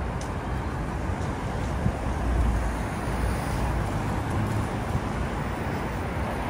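Steady traffic noise from cars on a busy city road, a low rumble that swells briefly about two seconds in as a vehicle passes.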